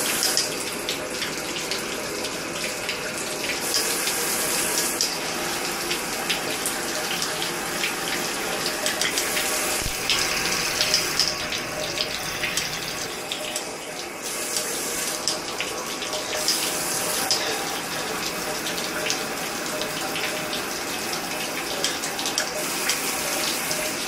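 Water spraying hard from a RAINVISTA six-function handheld shower head onto glass and tile: a steady hiss that brightens and dulls several times as the spray setting is switched between a narrow jet and a wide mist.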